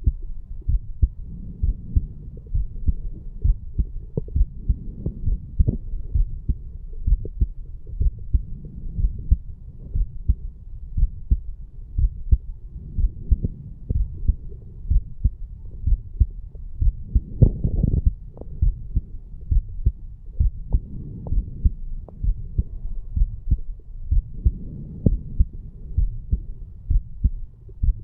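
A strong human heartbeat recorded at the chest over the mitral valve area just after exercise: a steady rhythm of paired low lub-dub thumps, with the valves opening and closing nicely by the uploader's account. A brief louder noise comes about two-thirds of the way through.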